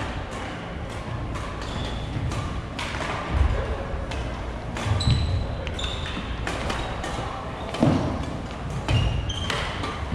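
Badminton in a large echoing gym: sharp racket-on-shuttlecock clicks from several courts, short high sneaker squeaks on the wooden floor, and heavier thuds of footsteps, over a steady murmur of chatter.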